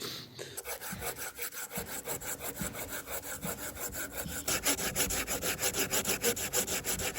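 Hand saw cutting through wood in steady back-and-forth strokes. About four and a half seconds in the strokes get louder and quicker, roughly four a second.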